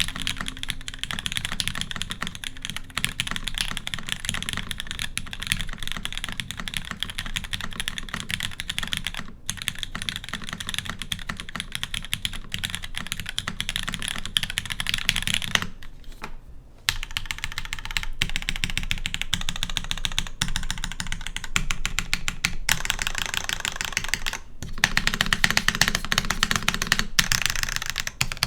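Custom mechanical keyboard with an aluminium plate, Cherry MX Black linear switches lubed with Krytox 205g0, TX stabilisers and GMK keycaps, typed on fast and continuously. The typing pauses briefly about sixteen seconds in, then carries on, loudest near the end.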